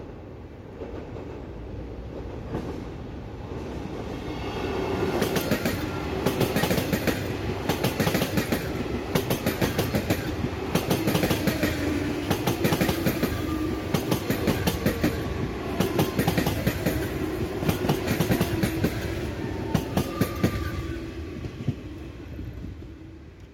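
Three coupled SNCF Z 21500 (Alstom AGC) electric multiple units passing close by, the wheels clicking over rail joints and the level crossing in a dense run. The sound builds over the first few seconds and fades near the end as the train goes by.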